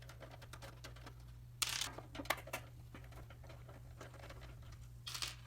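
Hand screwdriver unscrewing screws from a PC case: quick small clicks and scrapes of metal on metal. There are louder scraping bursts about a second and a half in and again near the end.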